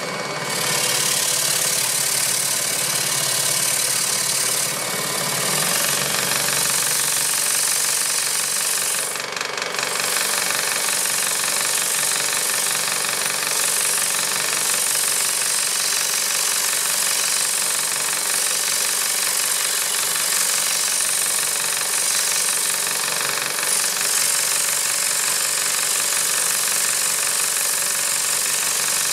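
Hegner scroll saw running steadily at low speed with a strip of 120-grit sandpaper clamped in place of the blade, its rapid up-and-down stroke rubbing the paper against the edge of a wooden workpiece. The sanding is removing burn marks left by a worn saw blade.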